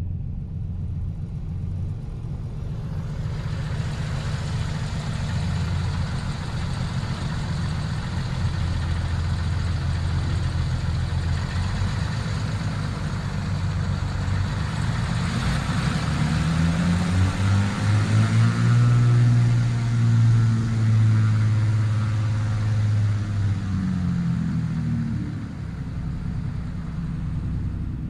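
Lake Renegade amphibian's pylon-mounted pusher engine and propeller running as the plane taxis. About halfway through it gets louder and the pitch rises, then eases back down a few seconds before the end: power is added to taxi the plane out of the water onto land.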